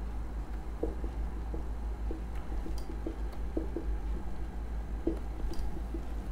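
Marker pen writing on a whiteboard: short, soft squeaks and taps, about two a second, over a low steady hum.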